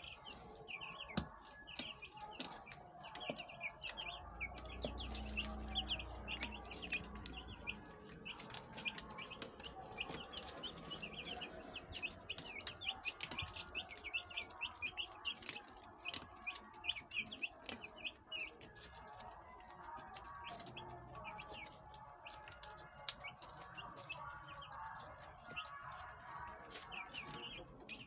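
A brood of young broiler chicks peeping nonstop, many short high chirps overlapping. A low rumble joins in for a few seconds about four seconds in.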